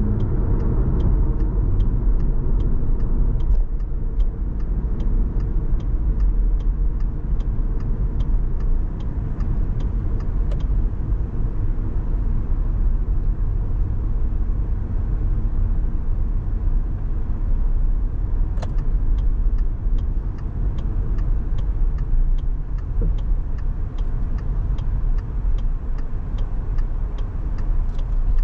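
Steady low rumble of car engine and road noise heard from inside a moving car. Over it comes an even ticking of about two to three clicks a second, typical of a turn-signal indicator. The ticking stops about ten seconds in and starts again about two-thirds of the way through.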